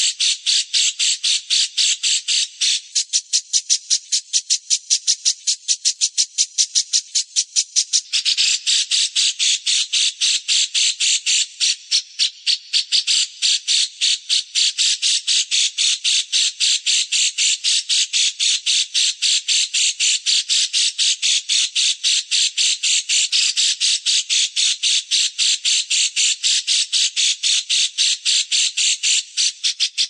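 A small songbird's harsh, rapid chirping, repeated about four times a second without a break. The call grows denser about eight seconds in.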